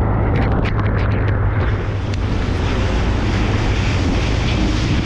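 Rigid inflatable boat's engine running at speed with a steady low drone, under rushing water and wind buffeting the microphone. A few short sharp slaps of water in the first second and a half.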